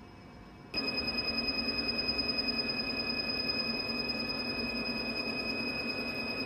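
Laser hair-removal machine beeping while its handpiece fires: a steady high-pitched tone that starts abruptly just under a second in, with a fast flutter in loudness and a low hum under it.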